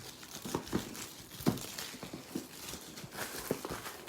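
Cardboard game box being handled: a string of light taps and knocks with crinkling rustles.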